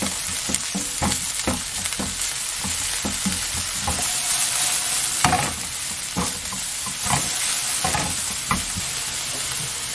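Chopped green onion and minced garlic sizzling in oil in a nonstick frying pan on high heat, with a steady hiss. A spatula stirs them, knocking and scraping against the pan irregularly, about twice a second.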